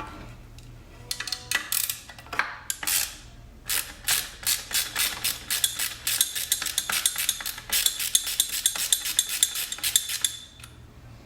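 Hand ratchet clicking in rapid strokes from about four seconds in, loosening the last bolt holding an engine-bay intake part, after a few scattered metal clinks of tools and parts.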